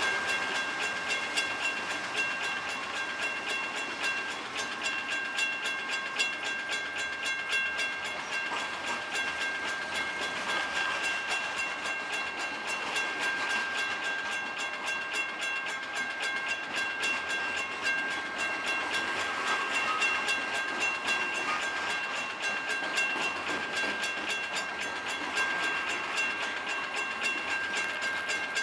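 CSX freight train of covered hoppers and open hoppers rolling past at trackside: wheels clicking rapidly over the rail, with a steady high-pitched squeal throughout.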